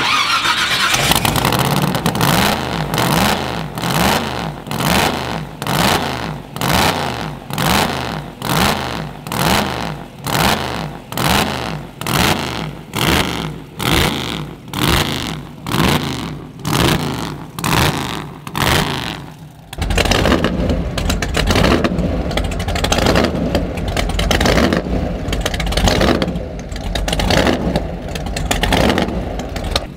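Supercharged V8 drag-car engine running just after a fresh start, its revs rising and falling in a regular surge about every three-quarters of a second. About twenty seconds in it changes to a steadier, deeper run.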